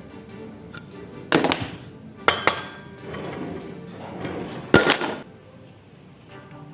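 A few sharp knocks and clatters of hard objects, four of them spread over about five seconds, over quiet background music.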